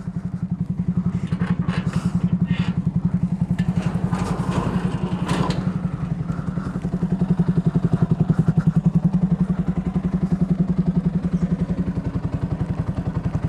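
Yamaha R15 V3's single-cylinder engine idling with an even, steady beat, warm after about an hour of riding. Short metal clanks from a steel gate being opened in the first few seconds.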